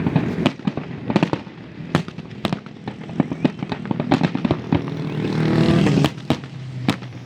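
Fireworks going off: a rapid, irregular string of sharp bangs and pops, some close and loud, with a louder crackling swell about five to six seconds in.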